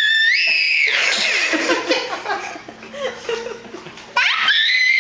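A toddler's high-pitched playful squeal, rising in pitch just after the start, followed by giggling; a second long squeal starts suddenly about four seconds in.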